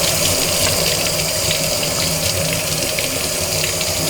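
Tap water running steadily into a sink while the coffee grinder's round metal disc is washed under it, with faint small knocks of the disc being handled.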